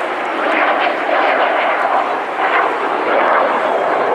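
Engine noise of a display aircraft flying past, loud and steady.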